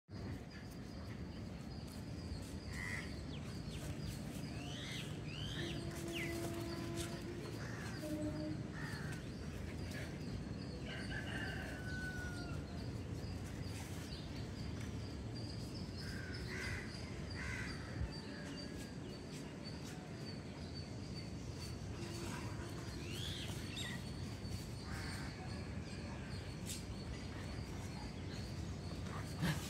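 Outdoor ambience with scattered short bird calls and chirps, some of them crow-like caws, over a steady low rumble and a thin high steady tone.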